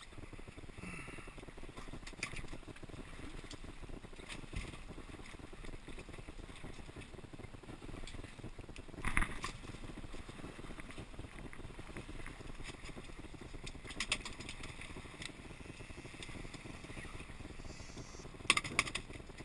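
Water slapping and sloshing against a small boat's hull, with wind on the microphone, broken by a few sharp knocks and clatters on the boat: the loudest about nine seconds in and a quick cluster near the end.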